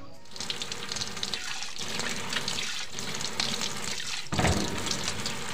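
Water running from a tap into a kitchen sink, splashing as things are washed under it, with a louder thump about four seconds in.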